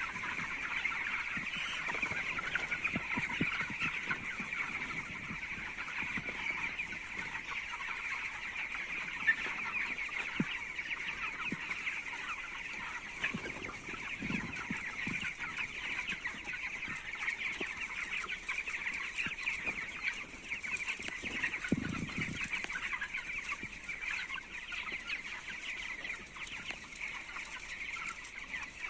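A large flock of young chicks peeping continuously, many overlapping high cheeps blending into a steady chorus. A few low thumps are heard midway and again later.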